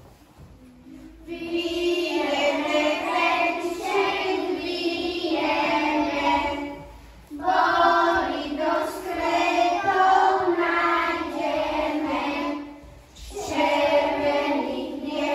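A group of young children singing a song together. It starts about a second in and pauses briefly twice, about seven and about thirteen seconds in.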